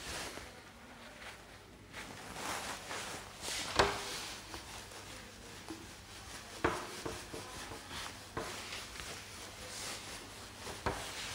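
A hand rubbing across a whiteboard, wiping off marker writing, with a few sharp knocks in between.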